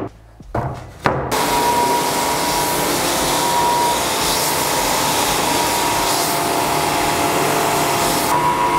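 Long-belt sander with its dust extraction running steadily with a high whine, sanding a rough spruce construction plank. The machine noise comes in suddenly after a quieter first second and a click.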